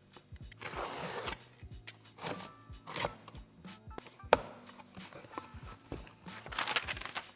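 Cardboard shipping box being opened by hand: several bursts of cardboard flaps scraping and rustling, with a sharp click about four seconds in, over background music.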